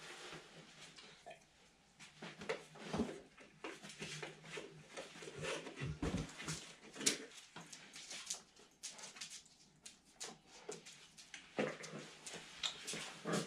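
Faint, irregular knocks, rubs and squeaks as the seat of a dirt bike is worked off its mounting nub and slid free of the plastic bodywork and frame after its two bolts are out.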